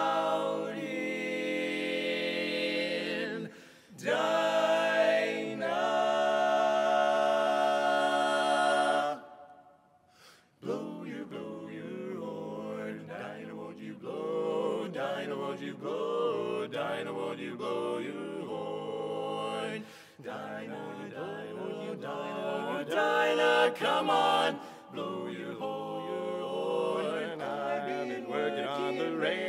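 Male barbershop quartet singing a cappella in four-part harmony: long held chords, a brief pause about nine seconds in, then a quicker, rhythmic passage.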